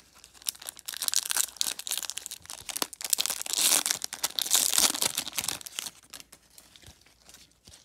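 Foil wrapper of a 1999 Bowman baseball card pack being torn open and crinkled by hand. The crackle is loudest about three to five seconds in and dies down near the end.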